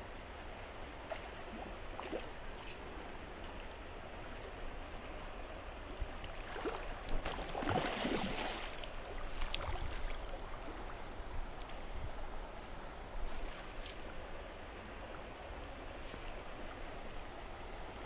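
Shallow stream water running, with splashing that peaks about seven to ten seconds in as a hooked brown trout thrashes at the surface close by.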